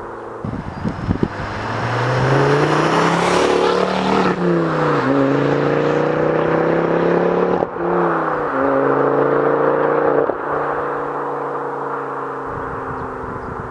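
Ford Focus ST Mk2's turbocharged 2.5-litre five-cylinder engine through an aftermarket Cobra exhaust, accelerating hard with the revs climbing, two gear changes about four and eight seconds in, then lifting off about ten seconds in and running on at falling revs.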